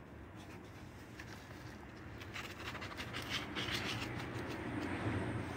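Potting soil being scooped and scraped into a plant pot, with gloved hands working it in: faint scratchy rustles that start about two seconds in and come in a quick run.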